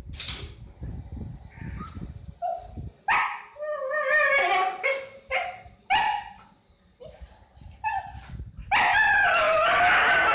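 A Kanni dog yelping and barking in a string of short, pitch-bending calls, ending in one longer, louder whining cry near the end.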